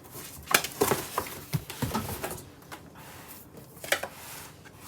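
Cardboard box and packaging being handled: irregular knocks and scrapes with rustling of cardboard and paper, the sharpest knocks about half a second in and near four seconds.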